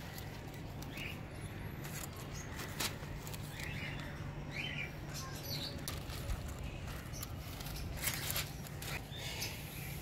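Thin kite paper of a small red paper kite rustling and crinkling in the hands as it is bent and folded, with scattered soft clicks and a few short high chirps over a low steady hum.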